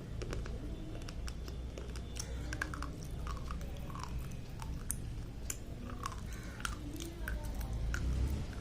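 Slate pencils being crunched and chewed, with many irregular sharp cracks as the brittle slate breaks between the teeth, over a low steady hum.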